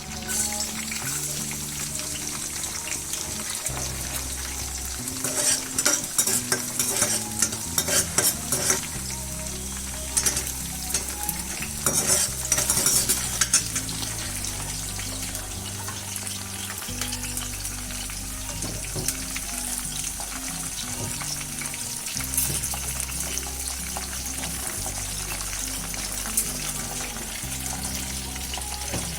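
Food sizzling in a hot pan while being stirred, with bursts of spatula scrapes and clicks against the pan through the middle, over soft background music with held low notes.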